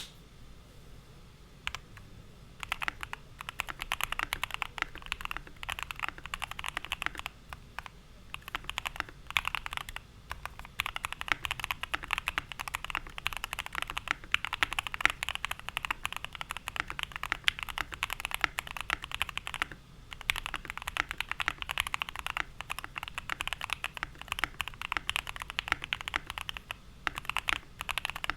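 Typing on a Keychron Q1 mechanical keyboard fitted with lubed, filmed Alpaca V2 linear switches: a fast run of key clacks that starts about three seconds in, with a few short pauses.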